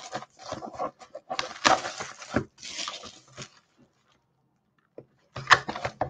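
Plastic shrink wrap being torn and crinkled off a sealed cardboard trading-card box, in irregular crackling bursts, with the box being handled and opened. The crinkling stops for about a second and a half past the middle, then starts again near the end.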